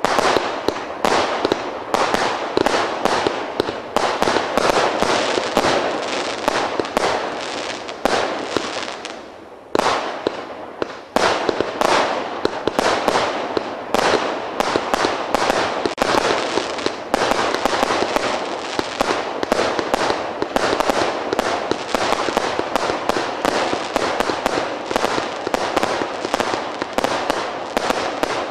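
The Big Bang 'Triada' (TB 66) fireworks cake firing its shots in quick succession: a steady string of launch bangs and bursting shells, a few a second, with a brief pause about ten seconds in.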